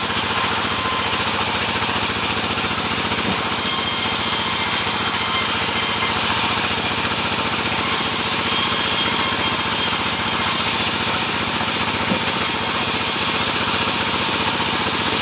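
Sawmill running steadily while sawing sengon wood: a loud continuous machine drone with a fast, even pulse and a faint high whine in the middle.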